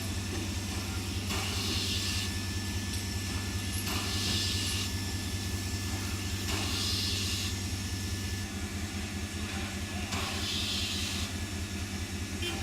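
Steam locomotive standing with a steady low running hum, and a short burst of hissing about every two to three seconds.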